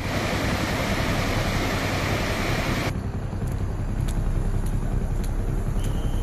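Muddy debris-flow water rushing down a road, a loud steady rush. About three seconds in it cuts to a quieter wet street with scattered light ticks, and a thin steady tone comes in near the end.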